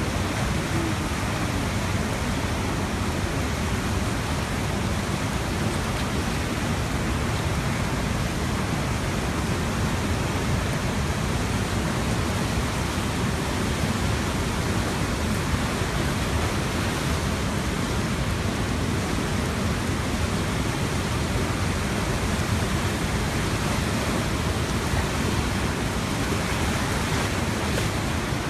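Swollen Tanaro river in flood, its brown torrent rushing through the streets in a steady, dense roar of moving water.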